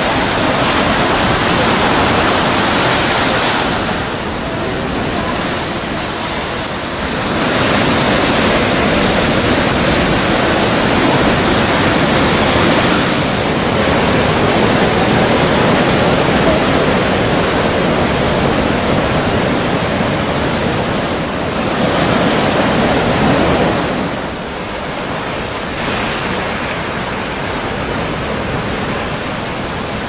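Strong wind blowing over a rough sea: a loud, steady rushing noise that swells and eases every few seconds, softer near the end.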